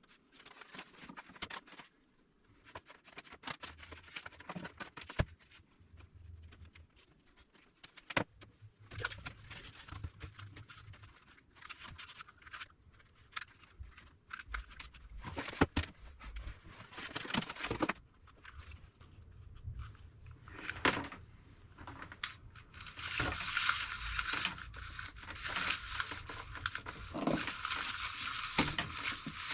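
Hands handling and working on small plastic parts: scattered clicks and knocks, then a denser crinkling rustle over the last six seconds or so.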